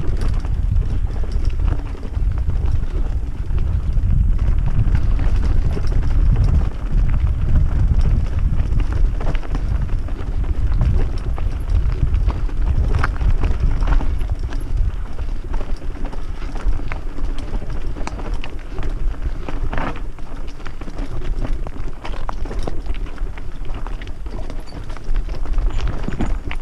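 Mountain bike ridden fast over a rocky dirt trail: a constant low rumble of wind on the microphone with dense rattling and knocking as the bike bounces over stones.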